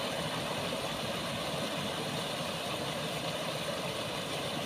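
Steady rush of water pouring over a low concrete weir in a canal.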